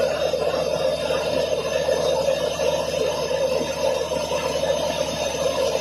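Horizontal directional drilling rig's engine and hydraulics running with a steady, even noise.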